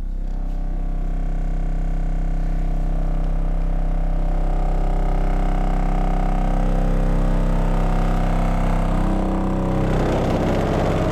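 15-inch subwoofer in a sealed, unported metal box playing a steady low test tone from a frequency generator, with a stack of overtones above it. About nine to ten seconds in, the tone shifts and a rougher buzzing noise joins it.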